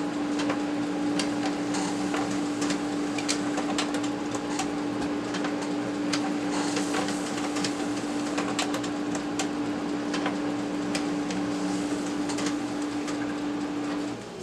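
Brother MFC-9330 colour laser printer printing report pages: a steady motor hum with frequent short clicks and ticks, cutting off near the end.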